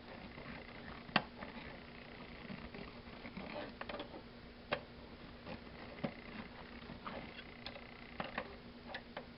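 Scattered small clicks and taps, about a dozen, irregular, of a tiny screwdriver and metal fittings being worked at a rusty porcelain lamp socket, over a faint steady hum.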